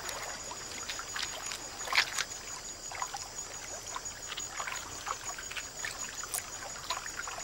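Small water splashes and drips from a giant otter feeding at the water's surface, with a sharper splash about two seconds in. A faint steady high-pitched tone runs behind.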